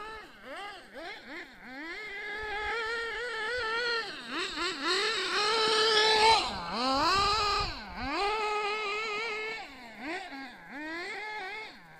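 A Hobao Hyper 7 1/8-scale RC buggy's small nitro engine runs at high revs. Its pitch climbs and drops again and again as the throttle is blipped through dusty sliding turns. It is loudest about halfway through as the buggy passes close.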